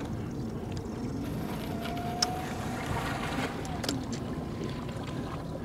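Steady wind and water noise around a small boat drifting on open water, with a few faint clicks about two and four seconds in.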